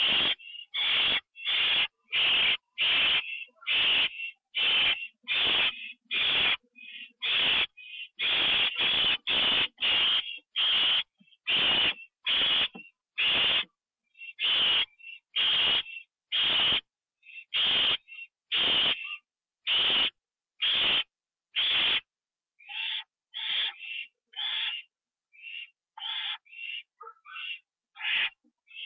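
Barn owl hissing: a long run of rasping hiss calls, each about half a second, a little more than one a second, changing after about 22 s to shorter, broken calls.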